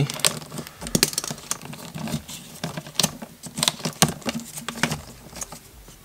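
Irregular clicks and crinkles of a non-metallic sheathed electrical cable's scored plastic jacket being worked loose and peeled back off the wires by hand.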